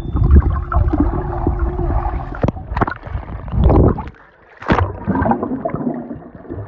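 Pool water sloshing and bubbling around a camera held underwater and at the surface, muffled and rumbling with sharp little clicks, dropping away briefly about four seconds in.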